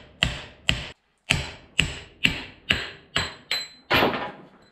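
A hammer striking a steel drift, about nine blows at roughly two a second with a short pause about a second in, each with a brief metallic ring. It is driving a collapsed bearing out of a Toyota Land Cruiser FJ45's front steering knuckle housing.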